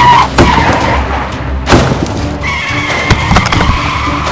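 Background music throughout, with a few sharp thuds as rocks tumble off the tipping bed of a Bruder toy dump truck.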